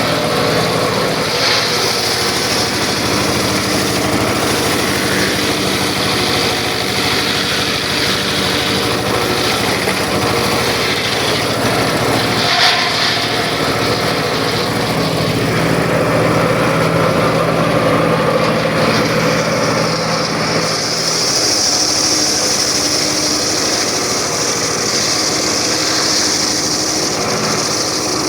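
Circular saw running steadily with a machine hum, its higher whine growing stronger about twenty seconds in as it works through wood.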